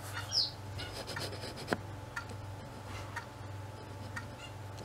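Faint rustling and rubbing with a few light clicks as a plastic model-kit sprue is handled in its clear plastic bag, over a low steady hum.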